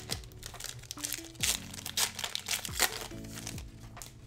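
Foil Pokémon booster pack wrapper crinkling and tearing open in several sharp crackles, over background music.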